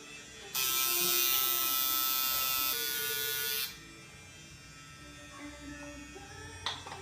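Electric tattoo machine buzzing steadily for about three seconds, then stopping.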